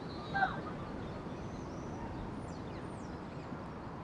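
Quiet outdoor background noise with faint, high bird calls gliding downward near the middle, and a brief louder call-like sound about half a second in.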